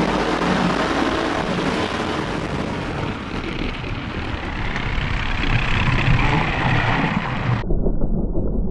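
Onboard sound of a slot car running at speed on a routed slot car track: its small electric motor, gears and tyres give a steady rushing noise, with a faint whine that wavers in pitch about halfway through.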